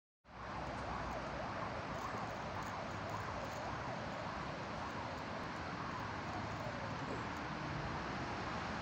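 Steady outdoor street ambience: an even hiss with a low rumble, with faint brief rising and falling pitches in the middle of the sound.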